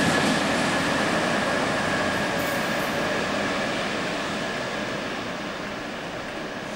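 EWS Class 66 diesel locomotives passing and drawing away along the track, a dense running rumble with a thin steady high whine, fading steadily as they recede.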